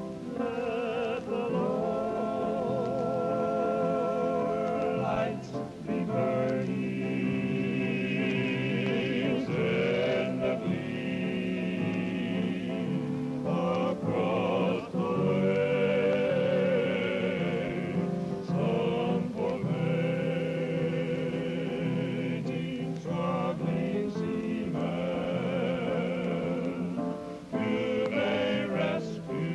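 A choir singing a gospel song, with long held notes sung with vibrato and changing every few seconds.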